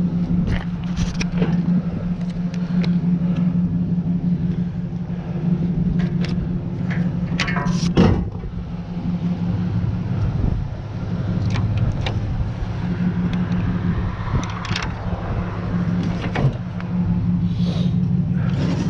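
Pickup truck engine idling with a steady low hum, with scattered knocks and clicks over it; the loudest knock comes about eight seconds in.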